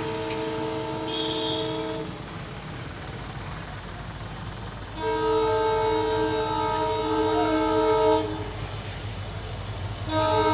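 WDP4D diesel-electric locomotive humming: a steady, many-toned hum over a low rumble. The hum fades about two seconds in, comes back louder about five seconds in until about eight seconds, and swells again just before the end.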